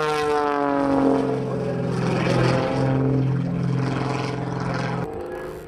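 Aerobatic biplane's piston engine and propeller running hard through a manoeuvre. Its pitch falls over the first second or so, then holds steady. About five seconds in, the sound cuts abruptly to a quieter engine.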